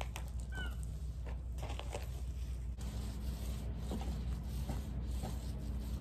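Soft, irregular rustling and scraping of a paint roller working thick ablative bottom paint onto a fibreglass boat hull, along with the rustle of disposable coveralls, over a steady low hum. A few short high chirps sound about half a second in.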